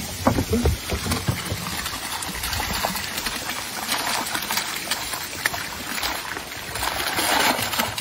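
Live crayfish and water tipped from a plastic bucket, splashing and crackling onto the surface of shallow lake water, growing louder toward the end.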